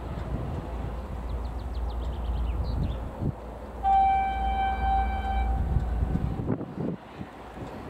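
2M62U twin-section diesel freight locomotive approaching with a steady low engine rumble. About four seconds in it sounds its horn once, a steady tone held for about a second and a half.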